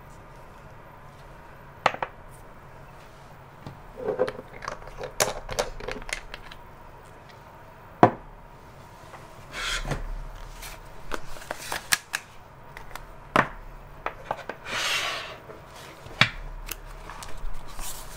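Scattered clicks and taps of a fountain pen and glass ink bottle being handled and set down on a wooden desk, with a couple of longer rustling swishes as a paper notebook is laid down and opened.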